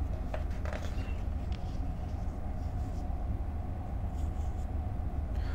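Steady low hum with soft paper rustles and a few light clicks as the pages of a large printed book are turned.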